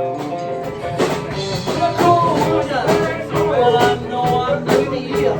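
Rock band playing: electric guitar over a steady drum beat.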